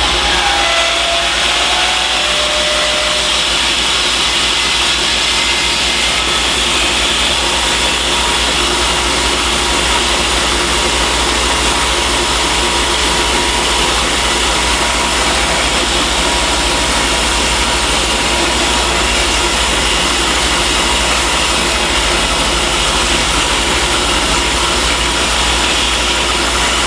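Shopsmith Mark VII combination woodworking machine running steadily on its lowest speed setting: a loud, even motor-and-belt whir with a whine that shifts pitch in the first few seconds and then holds. The wrong-size belt is on it under too much tension and is heating up.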